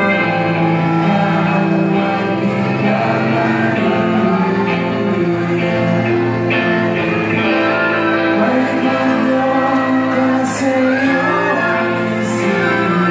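Live pop-rock band playing loud through the venue's speakers in a large hall: electric guitars, drums and violin under a sung vocal line.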